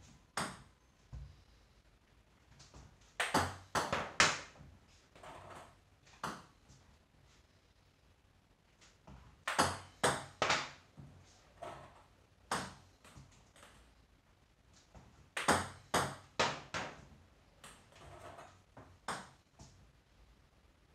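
Table tennis ball being served with underspin: short quick runs of sharp clicks every few seconds as the paddle strikes the ball and it bounces on both halves of the table.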